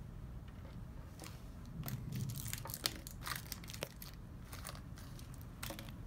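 Crinkly toy wrapping being handled and torn open by hand, in scattered crackles and crunches.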